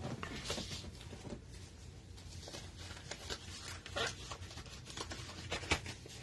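Faint scattered clicks and light rustling, like small objects being handled at a desk.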